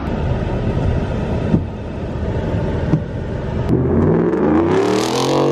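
Ford F-150 pickup driving past on a gravel road, its engine and tyres growing louder and the engine note rising then falling as it passes, loudest near the end.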